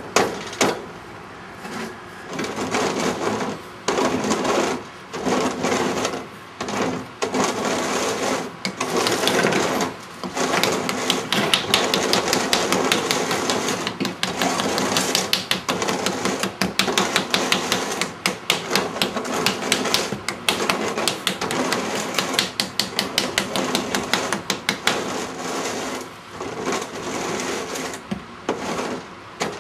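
Rapid repeated tapping or knocking, several strikes a second. It comes in short runs with gaps at first, then as a dense, fast run through the middle that thins out near the end.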